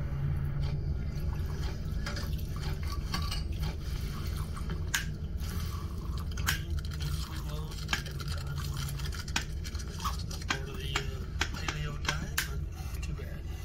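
Liquor trickling from a small plastic squeeze bottle into a glass tumbler, with repeated sharp clicks and taps of the bottle and glass. A steady low hum runs underneath.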